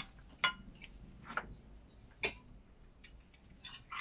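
A few light clinks of a metal spoon against ceramic bowls and plates, about one a second.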